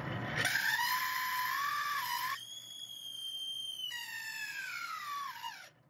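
Drill press boring a deep hole into a block of wood, the drill bit squealing in the hole with a whistle-like tone that jumps higher about two seconds in, then slides steadily down in pitch before stopping near the end.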